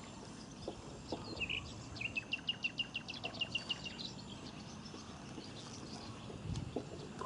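A bird sings one short chirp, then a rapid trill of about sixteen quick, evenly spaced high notes lasting about two seconds. Steady low outdoor background noise runs under it.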